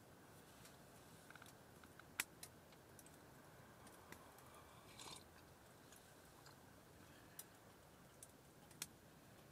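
Near silence broken by a few scattered sharp clicks and a short rustle about halfway through.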